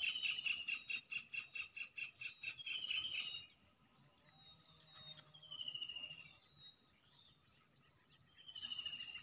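Outdoor wildlife sounds: bird calls in rapid trills that fall slightly in pitch, a long run in the first three seconds and two shorter ones later, over a steady high-pitched insect drone.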